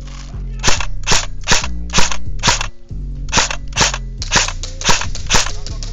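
Gas blowback airsoft replica fired in semi-auto: about ten sharp, loud shots, roughly two a second, in two strings of five with a short pause about halfway.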